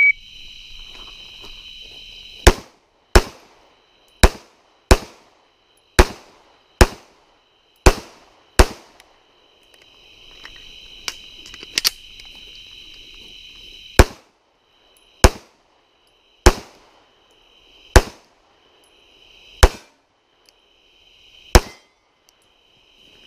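Semi-automatic pistol fired in a low-light practical pistol stage. It starts on a shot-timer beep, then fires eight shots in four quick pairs, pauses about five seconds for a magazine reload, and fires six single shots about a second and a half apart. Insects trill steadily in the background.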